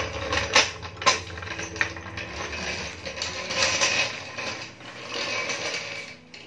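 Steel hydraulic floor jack being rolled over a concrete garage floor, its wheels and casters rattling, with a few sharp metal knocks in the first second or so.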